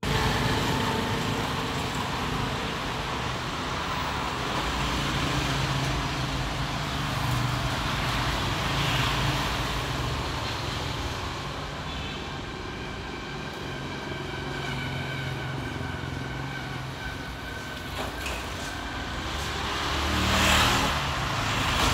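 Steady motor vehicle noise, with a louder swell near the end like a vehicle passing close by.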